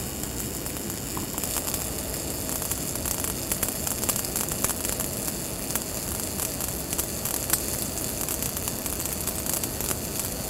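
Wire-fed welding arc of a Lincoln Power Wave S350 on the STT (Surface Tension Transfer) process, laying the root pass in a pipe joint: a steady, dense crackle and hiss full of fine sharp pops. A faint steady hum joins about a second in.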